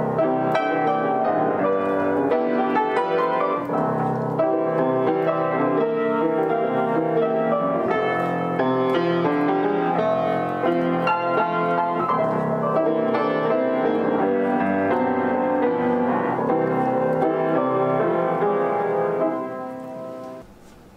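Upright piano played by hand: a flowing piece of many notes and chords. The playing stops about nineteen seconds in and the last sound dies away.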